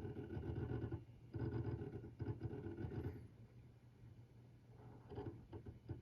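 Toshiba N300 16TB hard drive making an abnormal noise: a buzzing, whirring mechanical sound that comes in bursts of one to two seconds, stopping and starting with clicks between them. The bursts are fainter and more broken near the end.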